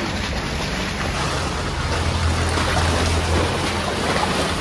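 Steady wash of sea and wind noise at the shore, with a low steady hum underneath that swells a little midway.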